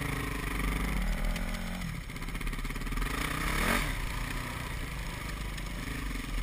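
Yamaha WR450F dirt bike's single-cylinder four-stroke engine running on a trail ride, the throttle easing off about two seconds in and the revs then climbing again a little before the midpoint.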